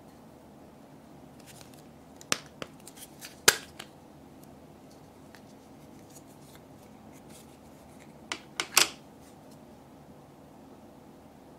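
Snap-on plastic lid of a small Barrel O Slime barrel prised off: a run of sharp plastic clicks ending in one loud snap. A few more quick plastic clicks and taps come about three quarters of the way through.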